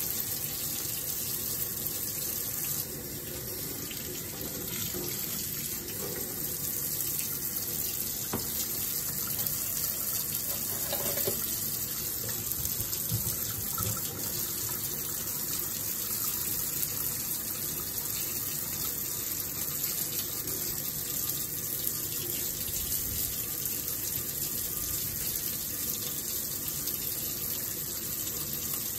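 Water from a tap running steadily into a stainless steel sink, with a few faint clicks along the way.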